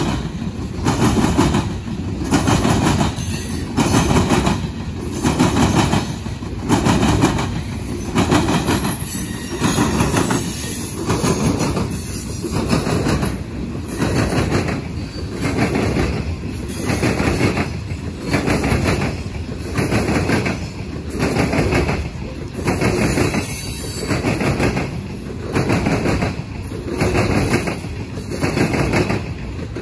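Loaded coal hopper cars rolling past, their wheels clacking over the rail joints in a steady rhythm of about one heavy beat a second.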